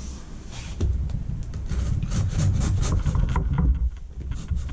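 Folding knife slitting the packing tape on a cardboard shipping box while the box is handled and scraped on a wooden desk: a dense run of scraping and rubbing with a heavy low rumble, starting about a second in.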